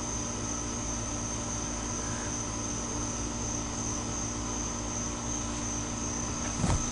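Steady chorus of night insects, a continuous high trill, over a low steady hum. A brief knock near the end.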